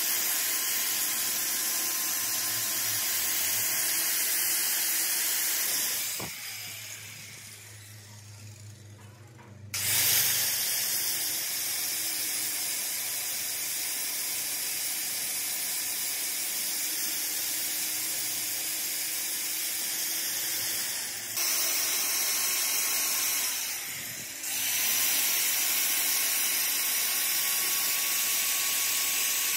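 Angle grinder grinding the teeth of a repaired steel pinion gear to shape, a steady high hiss over the motor's whine. It winds down about six seconds in, starts again about four seconds later, and dips briefly twice more later on.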